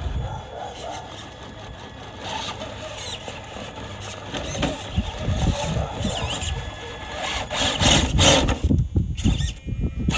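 Traxxas TRX-4 Sport RC rock crawler climbing a rock pile: its electric motor and geartrain whine on and off while the tyres scrape and knock against the rocks. The scraping is loudest about eight seconds in.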